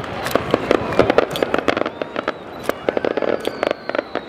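Aerial fireworks going off in quick succession: many sharp bangs, with two dense spells of rapid crackling. Near the end a thin whistle slides slightly down in pitch.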